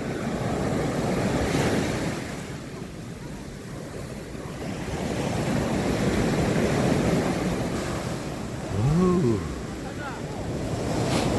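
Sea waves breaking and washing on a beach, swelling and easing in slow surges, with wind on the microphone. About nine seconds in, a short voice rises and falls in pitch.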